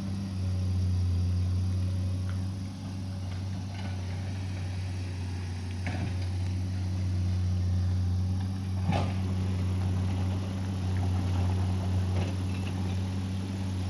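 Excavator's diesel engine running with a steady low drone, with a few sharp knocks about 6, 9 and 12 seconds in.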